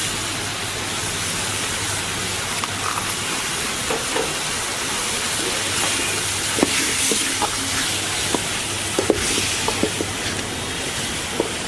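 Chicken pieces sizzling steadily in hot oil and masala paste in a pan, with a few light taps of a stirring spoon in the second half.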